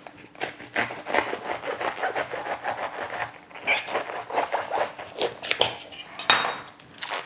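Sharp knife sawing through a raw artichoke in quick crunching strokes, several a second, with a louder knock about six seconds in.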